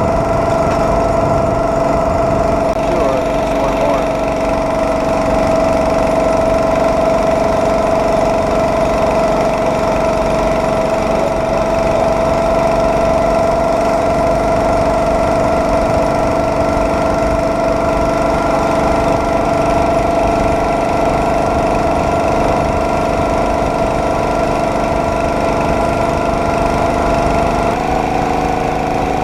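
Small gasoline engine of a homemade motorized rail cart running steadily under way, with a strong steady tone. The pitch steps up slightly near the end.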